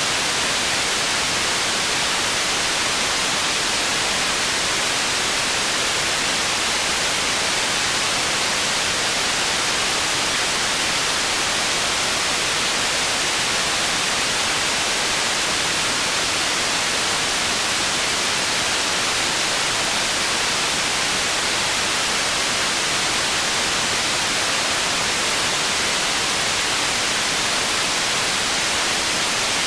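Processed white noise made for tinnitus masking: a steady, unchanging hiss, strongest in the upper range and thin in the bass.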